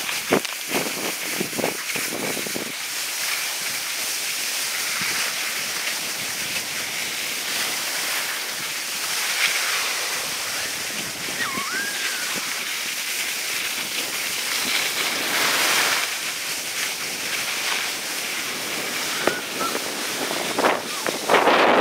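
Skis sliding over packed snow, a steady hiss mixed with wind on the microphone, with a few short scrapes or knocks near the start and again near the end.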